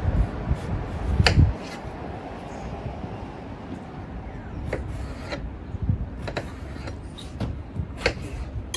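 Kitchen knife cutting an eggplant on a plastic cutting board: the blade scraping through the flesh, with scattered sharp taps where it meets the board.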